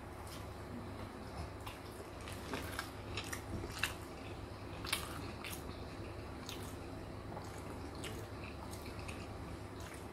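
A man biting into and chewing a mouthful of sauce-covered fried chicken burger with his mouth closed: faint, wet smacks and clicks, busiest a few seconds in.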